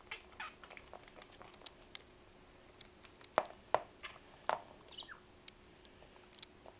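Budgerigar pecking at and knocking small plastic toys about on a tabletop: irregular light taps and clicks, with three louder knocks a little past the middle. There is a brief high note about five seconds in.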